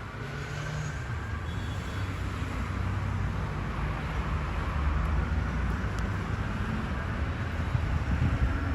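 Low rumble of a heavy road vehicle's engine and road noise building steadily louder, with a faint siren tone fading out over the first couple of seconds.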